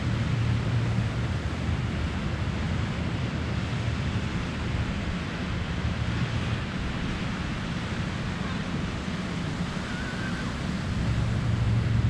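Surf breaking and washing up a sandy beach, a steady rushing hiss, with wind buffeting the microphone as a low rumble that grows stronger near the end.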